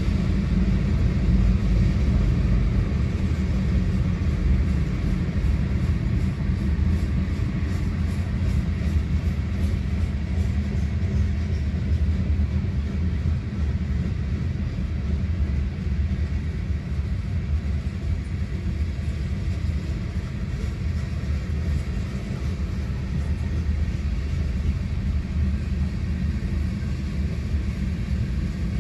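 Freight train of covered hopper cars rolling past, a steady low rumble of steel wheels on the rails, heard from inside a car.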